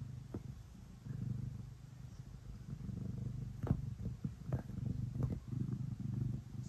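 House cat purring steadily while kneading a fleece bed, the purr swelling and easing with its breathing. A few soft clicks come in the second half.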